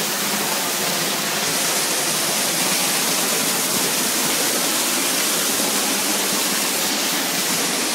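Spouting Rock waterfall, spring water gushing from the cliff face, heard close up from beneath the falling water: a steady, full rush of water that turns more hissy about a second and a half in.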